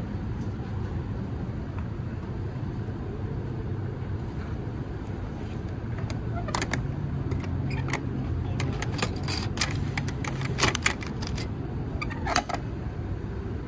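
Small metal clicks and clacks from the straw-outlet lid of a vending machine being opened by its knob and a straw being drawn out, beginning about halfway through and loudest near the end, over a steady low rumble.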